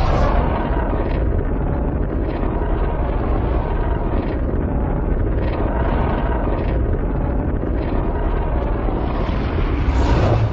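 A custom monster sound effect made for Godzilla Earth: a steady, deep rushing rumble with no clear pitch, swelling slightly near the end.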